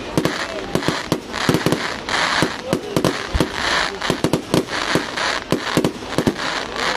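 Fireworks display: a dense, irregular string of sharp bangs from bursting fireworks, several a second, with a crackling hiss between them.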